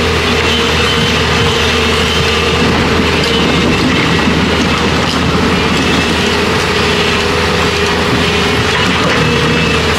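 Doosan DX140 crawler excavator travelling over broken rock: its diesel engine runs steadily under a constant whine while the steel tracks clatter over the stones.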